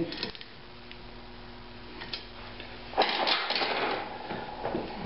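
Metal handling noises at a bench vise: a few light clicks, then, about three seconds in, a second or so of clattering and scraping as the flywheel with its new aluminum ring gear is worked loose from the vise.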